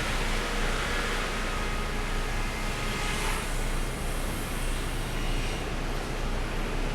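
Sawmill machinery running steadily: a continuous low hum under an even hiss, with no distinct impacts.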